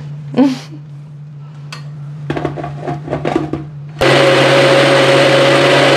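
Push-down personal blender (mixie) starting abruptly about two-thirds of the way in and running loud and steady with a constant whine, grinding onion, tomato, herbs and grated coconut with water into a thin masala paste.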